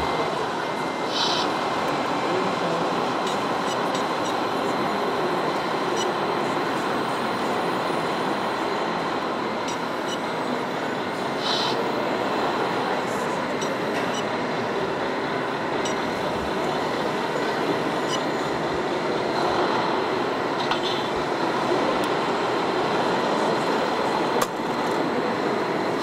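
Steady, even mechanical running noise of a remote-control model heavy-haulage truck, over the background noise of an indoor hall.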